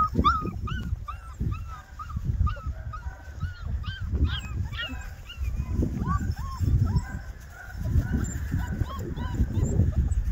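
Puppies whimpering and yipping in short, high, rising-and-falling cries, several a second at first and then more scattered. A louder, irregular low rumble runs underneath.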